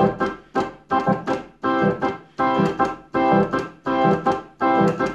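Electric organ playing a ska rhythm: short, choppy chords about twice a second with gaps between, the right hand on the offbeat and the left hand on beats two and four.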